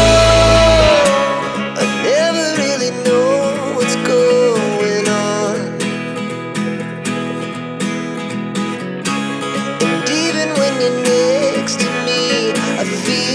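Background music: a pop song with plucked acoustic guitar and a singing voice; the bass and drums drop out about a second in, leaving a lighter guitar-led passage.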